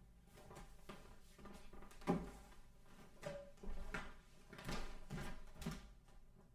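Scattered knocks and clicks of equipment being handled while the cellist sets up his playback, the loudest about two seconds in and a cluster more between four and six seconds.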